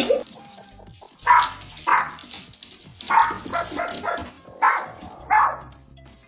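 Boston terrier barking in a string of about seven short, sharp barks, starting about a second in and spaced roughly half a second to a second apart.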